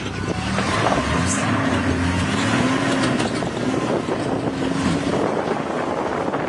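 Safari vehicle's engine running as it drives, its pitch wavering up and down, with wind noise on the microphone.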